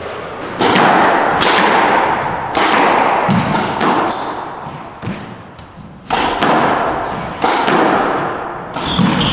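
Squash rally: the ball struck by racquets and smacking off the court walls, sharp hits about once a second, each ringing out in the court's echo, with a brief lull around five seconds in.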